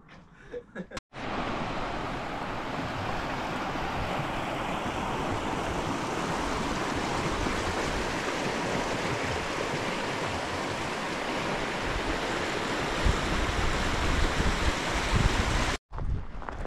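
Steady, loud rush of water, starting abruptly about a second in and cutting off shortly before the end, with a low gusty rumble added near the end.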